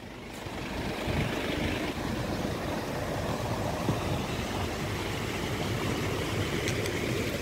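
A vehicle engine running steadily at a ford, under a steady rushing noise.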